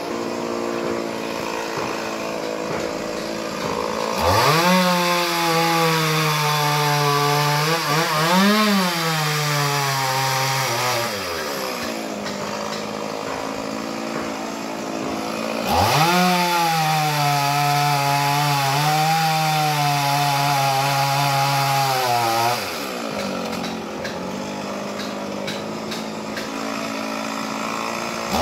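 Chainsaw idling, then revved to full throttle twice for about seven seconds each, the pitch sagging and recovering as it works through a coconut palm trunk; a third rev starts at the very end.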